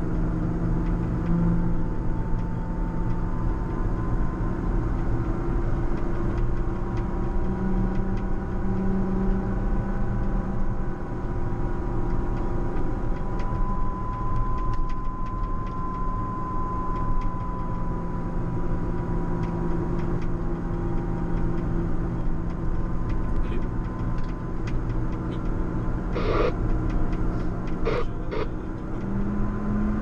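JCB Fastrac 4220 tractor's diesel engine running steadily under load while it pushes a front snow plough through snow. A low hum carries a steady whine, with a few brief clicks near the end.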